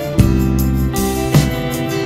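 Background music: sustained pitched notes over a steady beat.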